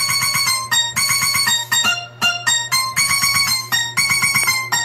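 Music playing through a small home-built sound system of horn-loaded tops and bass cabinets: a repeating phrase of quick, bright plucked-string notes over a steady low tone.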